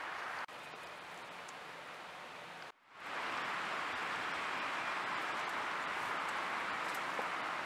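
Steady rushing outdoor noise. It dips slightly about half a second in and cuts out briefly about three seconds in before coming back louder.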